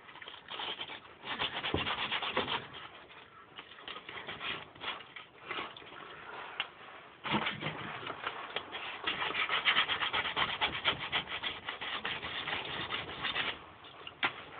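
Sandpaper rubbing on the compressor's metal parts in quick back-and-forth strokes, in two long runs with a quieter stretch between them. This is cleaning the old gasket residue off the sealing surfaces.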